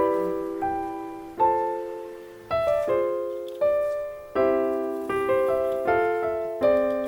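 Background piano music: chords struck one after another and left to ring and fade.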